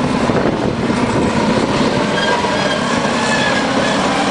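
Bulldozer at work, its diesel engine running under load and its steel tracks clattering as it manoeuvres, with faint high squeals coming and going in the second half.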